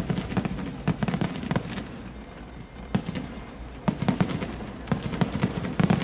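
Aerial fireworks bursting in rapid clusters of sharp bangs and crackles. They thin out about two seconds in and pick up again about a second later.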